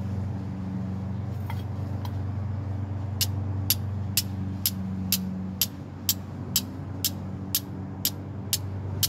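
Flint and steel being struck over and over, about two sharp clicks a second starting a few seconds in, throwing sparks onto denim char cloth that is not catching them: the striker takes the cloth for overcooked. A steady low hum runs underneath.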